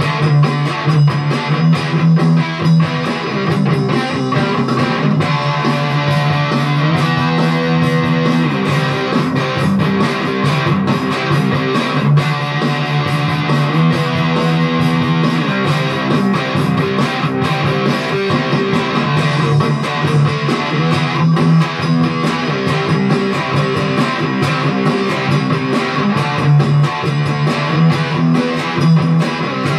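ESP LTD EC256 electric guitar played without a break: picked notes and chords.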